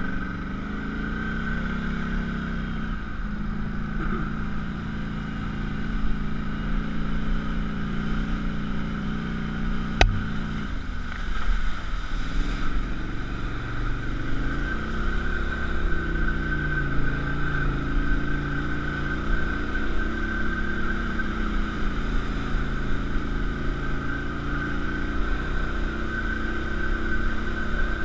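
Polaris Scrambler ATV engine running, its pitch rising and falling with the throttle. In the second half the wheels throw up water while the ATV drives through a flooded trail. One sharp click about ten seconds in.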